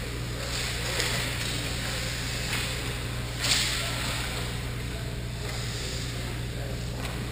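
Ice hockey skate blades scraping and carving on rink ice in short swishes, the sharpest about three and a half seconds in, over a steady low hum.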